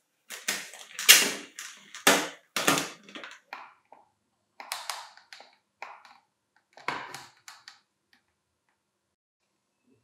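Plastic body of an Electrolux Ergorapido cordless stick vacuum being handled on a wooden workbench: a string of knocks, scrapes and rattles, loudest in the first three seconds, with a few more later. No motor sound.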